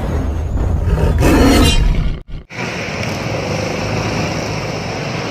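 Roar sound effect, loudest between about one and two seconds in, then cut off abruptly. After a moment of silence comes steady street noise with traffic.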